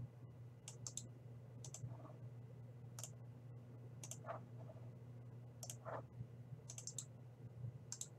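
Computer mouse and keyboard clicks, about a dozen faint, irregular clicks, as a highlighted list is copied and pasted into a spreadsheet. A steady low hum runs underneath.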